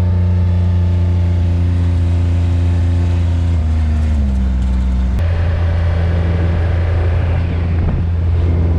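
Motor vehicle engine heard from inside the cab, pulling steadily in gear; its note drops about four seconds in and shifts again about a second later.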